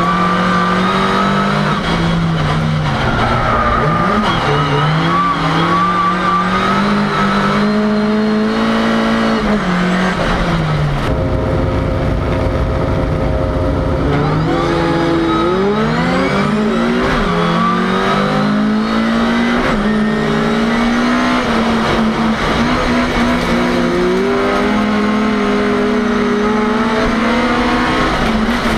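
Ford Cortina's engine heard from inside the cabin, driven hard: its pitch climbs and drops again and again as it pulls up through the gears, eases off for a few seconds midway, then climbs in quick steps and holds high.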